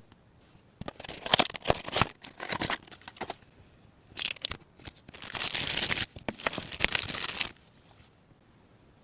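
Crinkling and rustling in two spells of bursts with small sharp clicks, as miniature toy pieces and their wrapping are handled.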